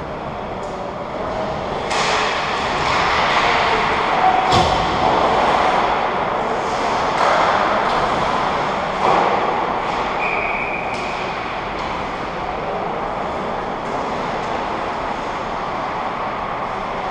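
Ice hockey rink sounds: skates scraping the ice close by, with knocks of stick and puck. The loudest is a sharp bang about four and a half seconds in.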